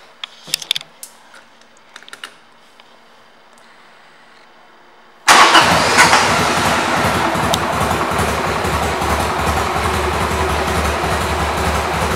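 A few clicks, then about five seconds in a Harley-Davidson Sportster 883's V-twin engine starts abruptly and settles into a steady idle.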